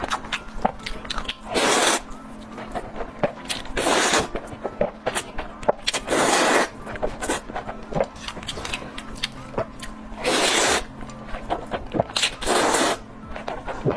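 Close-miked eating: wet chewing and mouth clicks, with five louder rushes of noise about half a second long, spread across the stretch.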